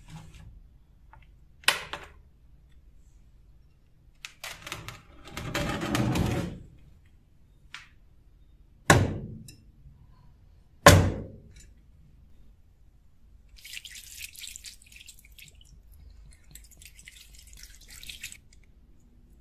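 A rusty steel knife is handled wet: a click, then a splashy rush of liquid as it comes out of its solution. Two sharp knocks of the blade on an aluminium baking tray are the loudest sounds. Near the end there is a crackly hiss of water and detergent being squirted onto the blade.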